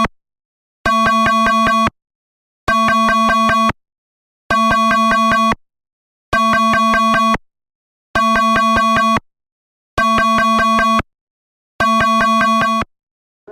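Electronic emergency alert tone: a harsh, buzzy two-tone beep about a second long, repeated seven times at a steady pace of roughly one every 1.8 seconds.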